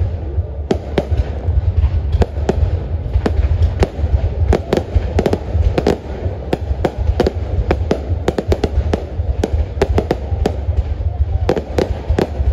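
Aerial firework shells bursting in a dense, irregular barrage, several sharp bangs a second over a steady low rumble.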